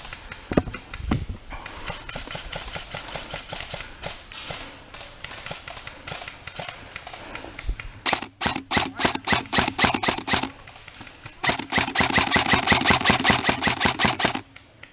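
Airsoft gun firing two long rapid bursts of shots, about a second apart, over the second half. Fainter rapid popping of airsoft fire comes before them.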